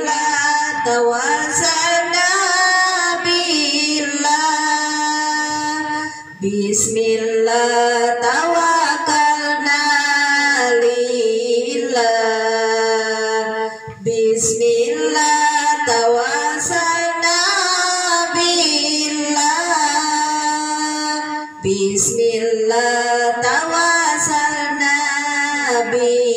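A woman singing an Arabic Islamic devotional chant into a microphone, in long held, ornamented phrases with short breaths between them about every seven or eight seconds.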